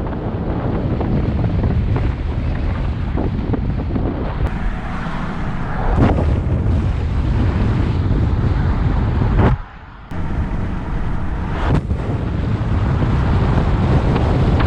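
Heavy wind noise buffeting the GoPro Hero 7 Black's built-in microphone as the camera rides outside a car at about 25 mph, mixed with the car's low road rumble. The noise drops away for about half a second around nine and a half seconds in.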